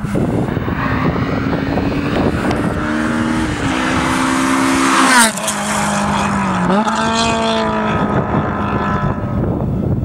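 Honda Integra DC5 Type R's tuned K20A four-cylinder on a Spoon N1 exhaust with decat and headers, driven hard past the microphone. The engine note climbs and steps several times, is loudest with a falling sweep as the car passes about five seconds in, then dips and climbs again as it pulls away.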